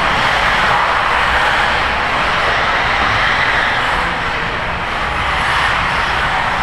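Several 1/8-scale RC off-road buggies racing together, their small high-revving motors making a steady, dense buzz that dips slightly about four seconds in.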